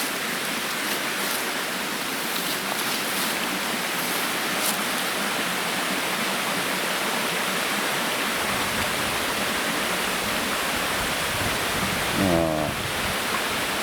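Waterfall rushing in a steady roar of falling water. A low rumble joins about eight seconds in, and a short voice-like sound breaks in near the end.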